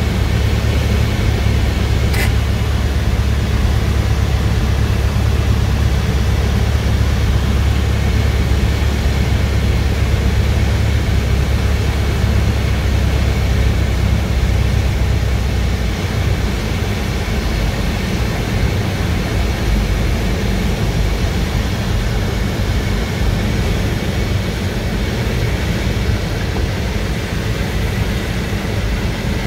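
Cabin noise of a Glastar light aircraft on its landing approach: the piston engine and propeller drone steadily under rushing air. The deep low end of the drone drops away a little past halfway and the whole sound eases slightly. A brief click comes about two seconds in.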